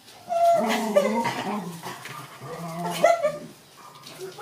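Pet dogs whining and vocalizing in drawn-out, wavering tones as two jealous dogs squabble for attention, with a sharp click about three seconds in.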